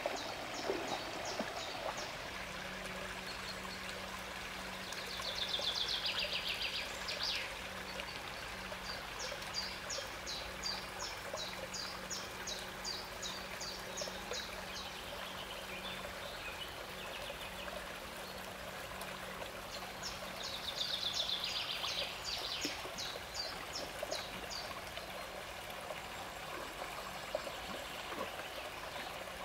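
A woodland brook running steadily, with a songbird singing over it in runs of quick repeated high notes. The bird gives a louder trill about five seconds in and again about twenty seconds in.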